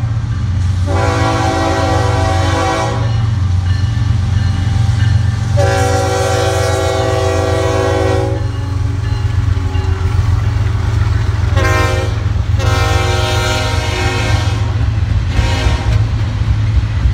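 CSX freight diesel locomotive air horn sounding five blasts: two long, then short, long, short. Under the horn runs the steady low rumble of the passing train: locomotive engines, then double-stack container cars rolling past.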